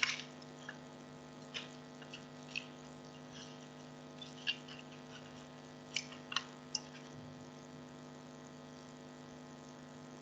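Steady electrical mains hum with a few short, faint clicks scattered through the first seven seconds or so.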